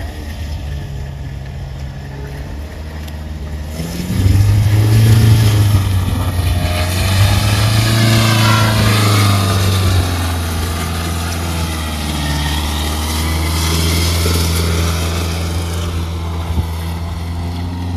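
Mahindra Thar 4x4 engine revving under load as it pulls through deep mud. It runs steadily at first, surges much louder about four seconds in with the pitch rising and falling for several seconds, then settles back to a steadier running note.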